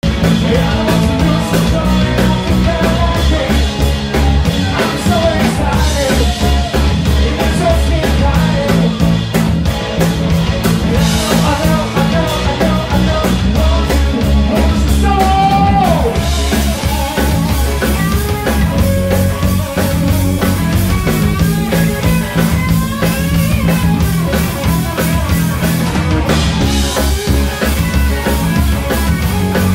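Live rock band playing: drum kit, bass guitar and electric guitar, with a man singing lead into a microphone.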